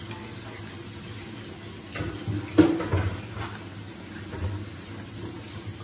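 Chicken braising in soy sauce in a metal wok over a gas burner: a steady bubbling hiss. Wooden chopsticks stir the pieces and knock and scrape against the wok in a short flurry around the middle.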